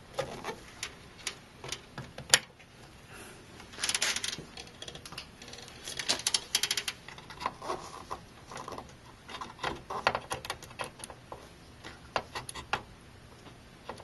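DDR4 memory modules being pressed into the plastic DIMM slots of an X99 motherboard: a string of small plastic clicks and rattles in several clusters as the sticks seat and the slot latches snap shut, with one sharp click about two seconds in.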